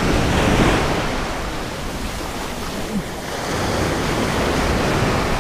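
Ocean surf washing onto the beach, swelling near the start and again about three seconds in, with wind buffeting the microphone.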